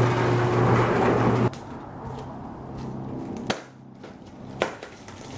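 Alfa Romeo Stelvio's engine running with a steady low drone, which cuts off abruptly about a second and a half in. After that comes a faint hum and two sharp clicks about a second apart.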